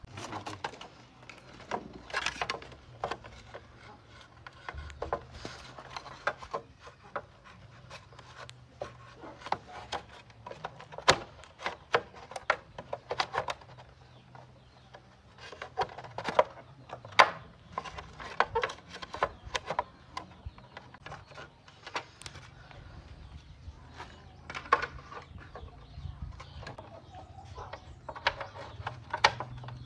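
Irregular knocks, clicks and scraping from hand work on parts, over a faint low steady hum.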